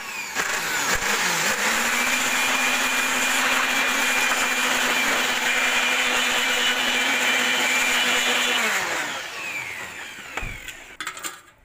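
Handheld electric air blower blowing dust out of an open desktop computer case: the motor spins up over the first second, runs steadily, then winds down with falling pitch about nine seconds in.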